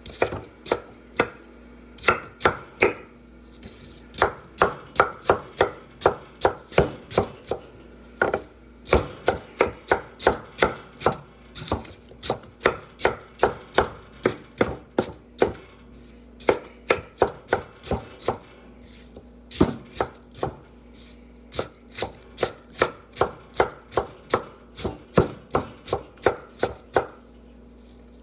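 Chef's knife dicing peeled apples on a wooden cutting board: sharp knocks of the blade striking the board, about two or three a second, in runs broken by short pauses.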